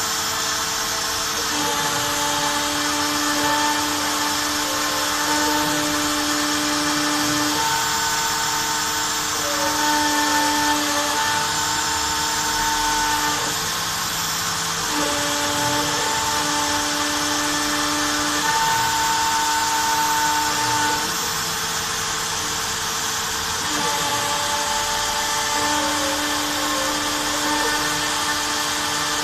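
Homemade CNC router engraving with a V-bit: the rotary-tool spindle runs at a steady high whine with a dust-extraction hose's suction rushing alongside. Over it the stepper motors sing in steady tones that start, stop and shift pitch every second or few as the axes move through the cut.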